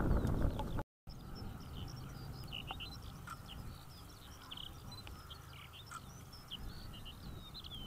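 Wind buffeting the microphone for about the first second, then, after a brief cut, many small birds chirping and calling at once over a faint low hum.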